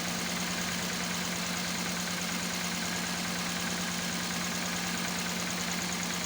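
Toyota Corolla VVT-i engine idling steadily while misfiring on one cylinder, a fault traced to that cylinder's ignition coil leaking current.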